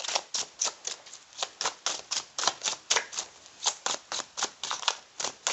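A deck of tarot cards being shuffled by hand: a quick run of sharp card-on-card clicks, about four a second.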